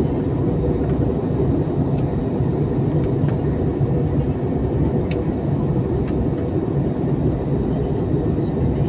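Steady roar of airliner cabin noise, engines and airflow heard from inside the passenger cabin. A faint click about five seconds in.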